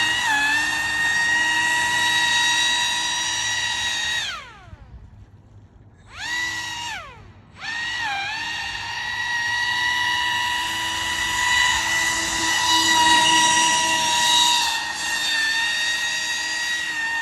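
Pro Boat AeroTrooper 25-inch RC airboat's brushless motor and fan propeller whining at a steady high pitch under throttle. About four seconds in the throttle is cut and the whine falls away. A short blip follows, then it comes back up and holds steady.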